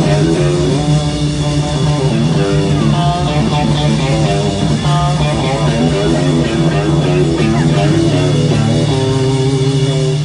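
Live blues-rock band playing: electric guitar phrases with string bends over a low note held steadily underneath.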